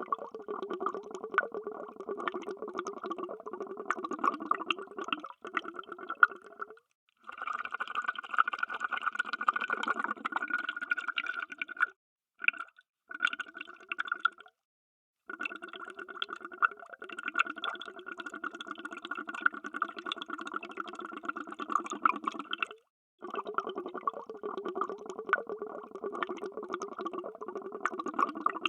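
Underwater bubbling: a dense, continuous stream of bubbles crackling and gurgling, cut off by short spells of complete silence several times.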